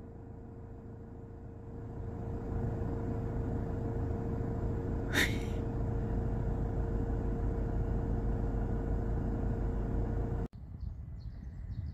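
A steady low rumble with a constant hum, growing louder about two seconds in. A single brief high chirp comes about five seconds in, and the sound cuts off abruptly shortly before the end.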